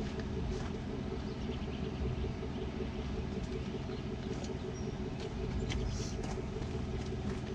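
Chevrolet Avalanche pickup idling, a steady low engine hum.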